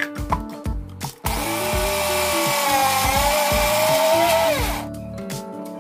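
Electric mixer grinder running for about three and a half seconds, starting about a second in, as it grinds skinned peanuts into a coarse powder. The motor's pitch wavers slightly under the load, then falls away as it is switched off, stopped just as the peanut oil begins to separate. Background music with a beat plays under it.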